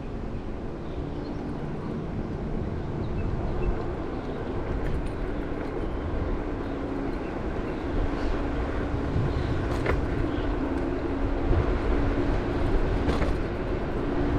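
Varla Eagle One dual-motor electric scooter being ridden: wind buffeting the microphone and steady road rumble, with a faint steady motor whine and a couple of light clicks in the second half.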